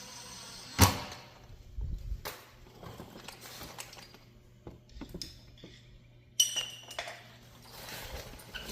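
Metal tools and hardware clicking and clinking during work on an RV water heater's electric element and its wire terminals: a steady hiss stops with a sharp click about a second in, followed by scattered light clicks and knocks, one with a short metallic ping.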